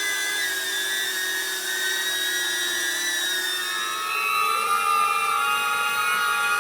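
DJI Neo mini drone flying on GEMFAN GEM-D51 aftermarket propellers: a high-pitched whine of several steady tones from the motors and props, shifting in pitch and getting slightly louder about four seconds in as the motor speed changes.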